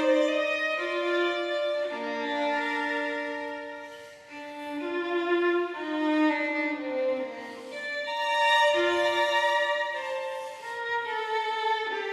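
Background music led by a bowed violin playing slow sustained notes, with a brief quiet dip about four seconds in.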